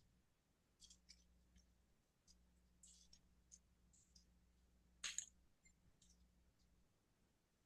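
Near silence with faint, scattered short clicks, one louder click a little after five seconds in.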